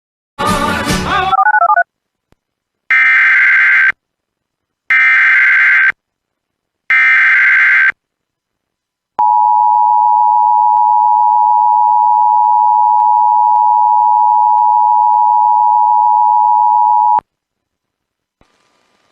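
Emergency Alert System header: after a short burst of sound, three one-second bursts of warbling SAME data tones sound a second apart, followed by the steady eight-second dual-tone EAS attention signal, which cuts off sharply. Together they mark the start of a new emergency alert, here a tornado warning.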